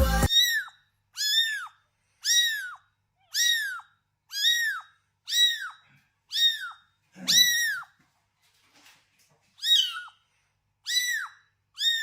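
A cat giving short, high-pitched, squeaky meows about once a second, each call rising and then falling in pitch, about eleven in all with one brief pause.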